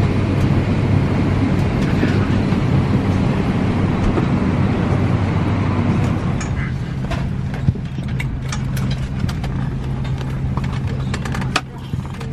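Cabin ambience of a parked Airbus A319 during boarding: a steady air-conditioning hum with low droning tones. About six seconds in, the drone shifts to a different low pitch, and small clicks and knocks from people moving about begin.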